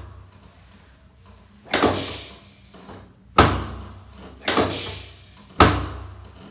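Chiropractic drop table's pelvic section dropping under the thrust, four sharp thuds a second or two apart, each fading quickly. It is a drop-technique adjustment of the sacrum, pushed from back to front to bring it into alignment.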